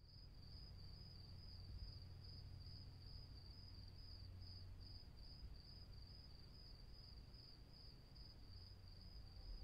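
Near silence: faint night-time room tone with a steady, high-pitched, slightly pulsing trill over a low hum.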